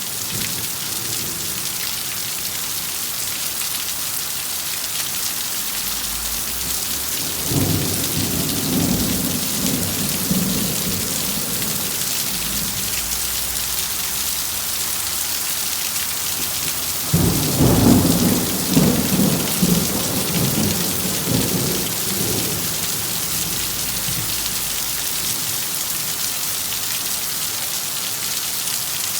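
Steady heavy rain hissing, with two rolls of thunder rumbling through it, the second one louder.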